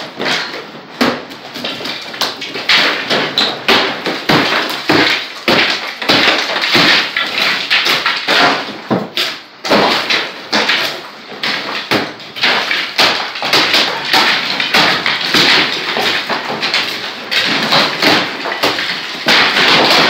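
Hand hammer striking a hard surface in rapid, irregular blows, several a second.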